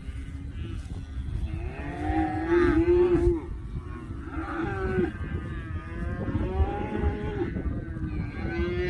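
Dairy cattle mooing: several long, drawn-out moos one after another, the loudest about two to three seconds in, over a steady low rumble.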